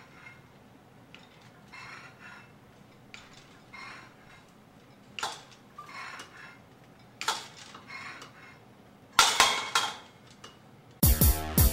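Metal plates of a cable machine's weight stack clinking with each rep, a short ringing clink every second or two, loudest about nine seconds in. Loud electronic music with a heavy beat cuts in near the end.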